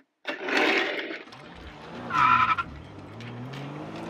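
Race-car sound effect: a skidding hiss, then a short tire squeal about two seconds in, over an engine revving with its pitch slowly rising.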